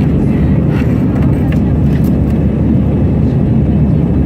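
Airliner cabin noise during the climb after takeoff: the jet engines and rushing air make a steady, loud, low rumble.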